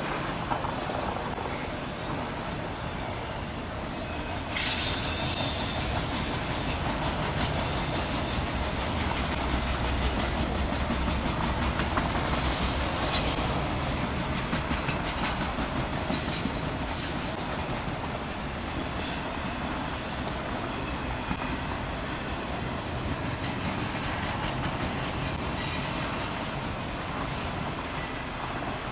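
CSX freight train of autorack cars rolling past: a steady rumble and clatter of wheels on rail, with bursts of high-pitched wheel squeal, the loudest about four seconds in and more around twelve seconds.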